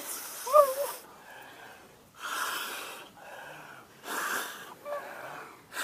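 Strong breaths blown into a nearly drowned dog's snout in mouth-to-snout rescue breathing: three rushing breaths, each under a second, roughly two seconds apart.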